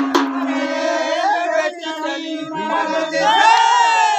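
Several voices singing and calling out together in the chanted style of a Chhattisgarhi Raut Nacha folk dance, with a held note in the first half and a louder rising call near the end.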